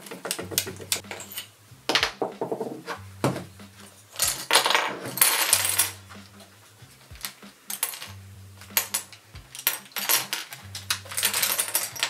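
Hard plastic twisty-puzzle pieces clicking and clattering as a large Petaminx is taken apart by hand, with pieces pulled out and dropped onto a pile. There are many separate clicks and a few short runs of rattling, the longest about four to five and a half seconds in and again about ten and a half seconds in.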